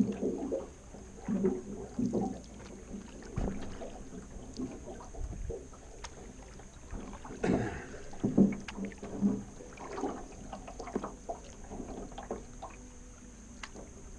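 Canoe being paddled: paddles dipping and splashing in the water at an uneven pace, with a few sharp knocks.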